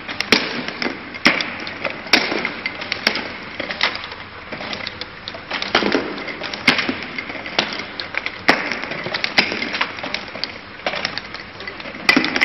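Top-surface labeling machine running, with a steady mechanical noise and a sharp clack every second or so as items pass through it.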